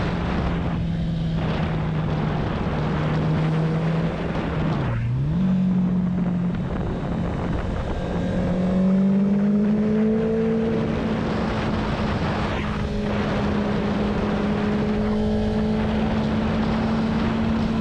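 Motorcycle engine running at road speed with wind rushing over the microphone. About five seconds in the engine note drops sharply and comes straight back up. Around nine seconds in it rises and holds higher as the bike accelerates.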